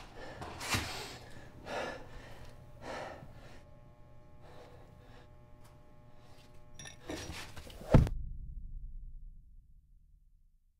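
A man breathing hard in heavy gasps, then a single loud thud about eight seconds in, followed by a low fading rumble.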